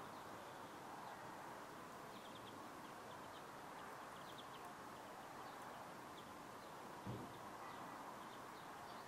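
Faint outdoor ambience: a steady low background hiss with faint, scattered bird chirps, and a single brief low thump about seven seconds in.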